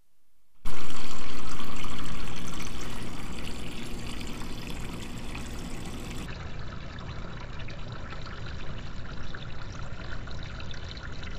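Water from a refrigerator door dispenser pouring in a steady stream into a plastic cup, starting about half a second in. It is loudest at first and grows quieter as the cup fills.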